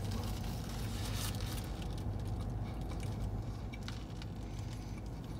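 Paper sandwich wrapper crinkling in a few short rustles as a burger is handled and eaten, over a steady low hum inside a parked car.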